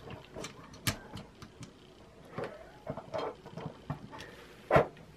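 Metal camera cage being handled and fitted around a DSLR body: scattered light clicks and taps of metal parts against the camera, with a sharper knock about a second in and a louder one near the end.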